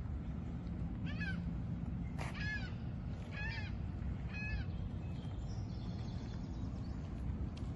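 Porsche 911's flat-six engine running low and steady as the car rolls slowly past. Over it come four short high calls about a second apart, each rising and falling in pitch, from an unseen source.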